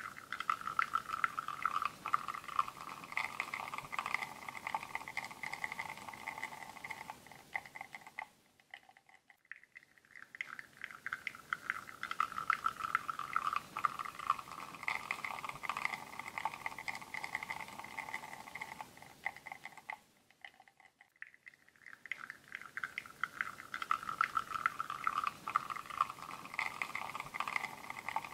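Linea Mini espresso machine pulling a bottomless shot: a steady crackling, trickling sound of espresso flowing. It dies away about nine seconds in and again about twenty-one seconds in, each time building back up.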